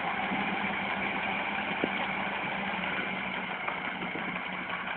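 Farm tractor diesel engines running steadily at low revs, holding one even tone.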